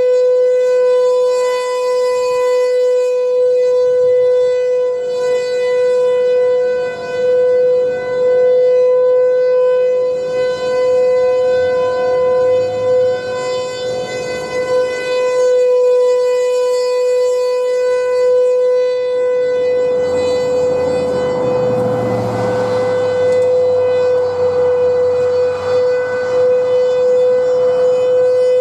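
Federal Signal Thunderbolt 1000 outdoor warning siren sounding a steady tone at one held pitch, swelling and fading slightly in loudness as it rotates. About two-thirds of the way through, a brief rushing noise rises over it.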